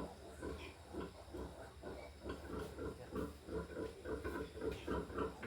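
Pigs grunting in a quick series of short grunts that speed up to about four a second through the middle.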